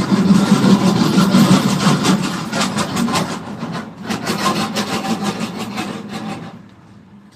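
Rapid, repeated rubbing and scraping strokes, like filing or sanding on a part of the water-pump motor, dying away about six and a half seconds in.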